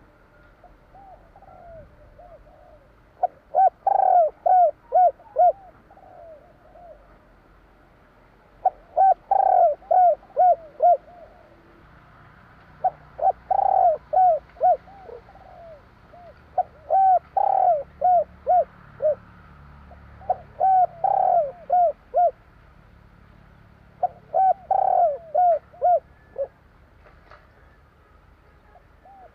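Spotted dove (tekukur) cooing: six loud phrases of quick repeated coos, one about every four seconds, with fainter cooing in between.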